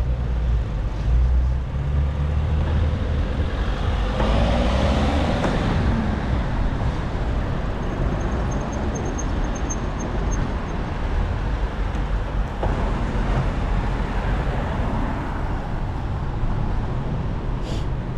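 Street traffic around a moving bicycle, with wind rumble on the microphone. About four seconds in, a passing vehicle's engine note slides in pitch.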